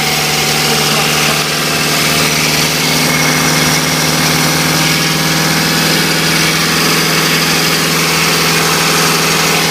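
An engine idling steadily, a constant hum that holds one pitch without revving.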